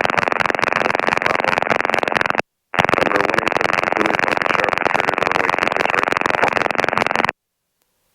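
Steady rushing noise of an open R22 headset intercom, the helicopter's cockpit noise coming through the microphone, narrow and radio-like. It drops out completely for a moment about two and a half seconds in, then cuts off suddenly near the end as the channel closes.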